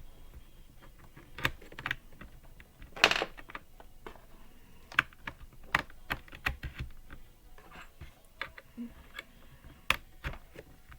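A computer mouse being plugged into a laptop and handled: scattered, irregular sharp plastic clicks and taps, with one louder rattling click about three seconds in.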